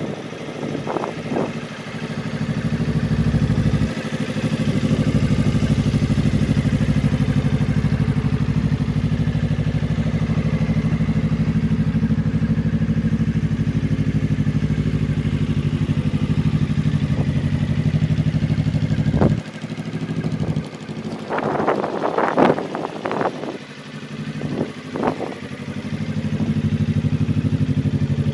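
Suzuki GSX250R's 248 cc parallel-twin engine idling steadily. About two-thirds of the way in, the idle drops out for several seconds and a few sharp knocks and clatters are heard. The idle is back near the end.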